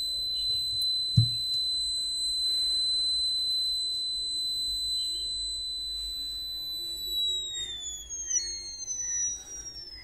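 Small electronic buzzer on a homemade 9 V fire-alarm circuit sounding one continuous high-pitched tone: the alarm is on because the fire sensor has been triggered. Near the end the tone slides down in pitch and fades out as the circuit loses power. There is a single low knock about a second in.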